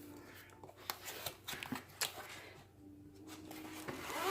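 Faint handling noises from an unboxing kit's packaging: scattered light clicks and soft rustles, quietest about three seconds in.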